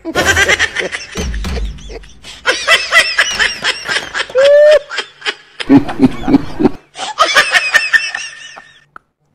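Laughter: quick runs of high-pitched cackling and snickering, with deeper chuckling pulses a little past halfway.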